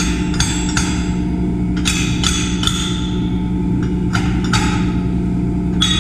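Thick steel plates of a machine part being knocked apart by hand: about a dozen sharp metallic knocks, each with a short ring, mostly in quick groups of three. A steady low hum runs underneath.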